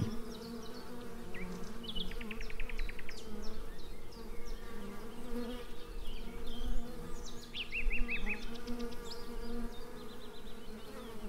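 Honeybees buzzing around the hive in a steady hum, with a few short, high twittering trills about two seconds in and again near eight seconds.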